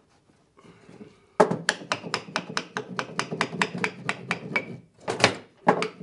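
Small hammer tapping rapidly on the corner of a hardwood picture frame, about five light even knocks a second for a few seconds. Then two harder single knocks near the end.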